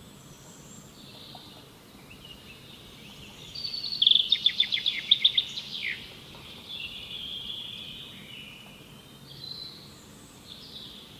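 Birds calling outdoors: scattered high chirps, and near the middle a loud, fast series of about ten sharp high notes lasting about two seconds, over a steady background hiss.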